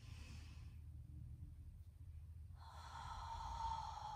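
A woman breathing audibly between cues: a faint breath in at the start, then a long breath out from about two and a half seconds in, over a low steady hum.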